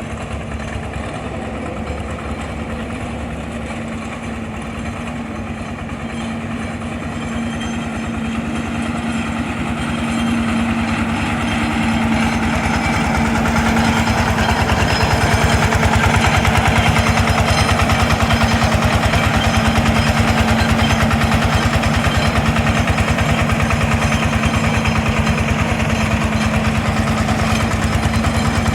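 4LZ-0.7 mini crawler combine harvester running, a steady engine sound with a constant hum; it grows louder from about eight to fourteen seconds in and then holds level.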